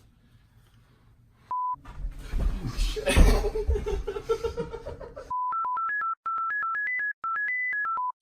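A short single beep, then about three and a half seconds of loud, harsh noise with a heavy low end, loudest a little past three seconds in. It gives way to a melody of plain electronic beeps stepping up and down in pitch, like a tune tapped out on a phone keypad.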